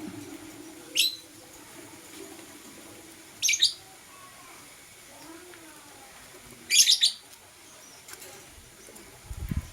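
Lovebirds giving short, sharp, high-pitched chirps in spaced bursts: one about a second in, a quick pair around three and a half seconds, and a cluster near seven seconds. A low rumble comes just before the end.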